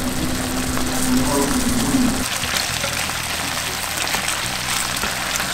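Kingfish fillets sizzling and crackling in butter and teriyaki sauce in a hot nonstick frying pan. Background music plays underneath.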